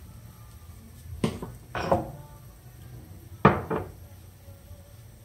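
Kitchen utensils and containers clinking: two pairs of sharp knocks with a short ring, the first pair about a second in and the second near three and a half seconds in.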